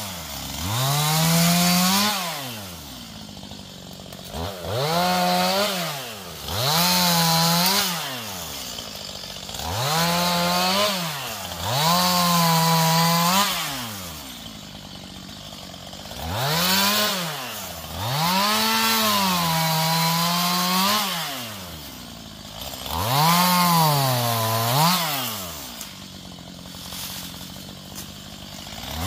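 Two-stroke chainsaw cutting branches, its engine revving up to full speed and falling back to idle about nine times in short cuts of one to three seconds each.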